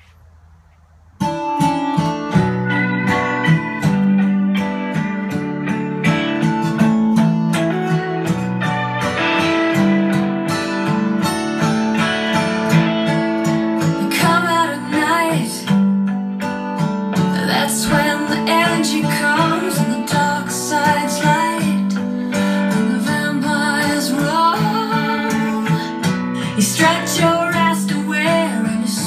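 A recorded song with acoustic guitar and singing, played from a CD over a home hi-fi system in the room; it starts about a second in.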